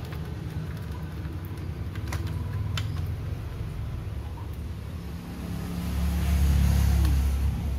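A low engine-like rumble that swells to its loudest about six seconds in, with a few faint clicks earlier on.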